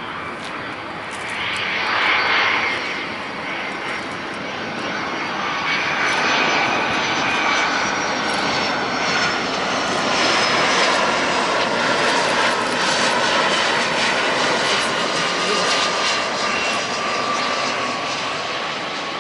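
Boeing 757 on final approach with landing gear down, its two jet engines whining and rushing as it flies low past. The sound grows louder, and its whine slowly falls in pitch as it passes.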